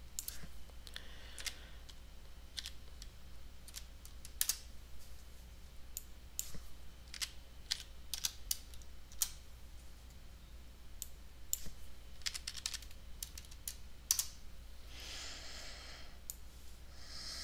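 Computer keyboard and mouse: irregular taps and clicks as numbers are typed into settings fields, over a low steady hum. A brief soft hiss comes about fifteen seconds in.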